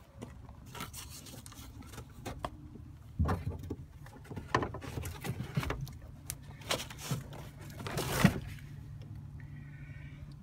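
Car floor carpet and its jute underlay being pulled up and folded back by hand, rustling and scraping in several bursts, loudest near the end, over a steady low hum.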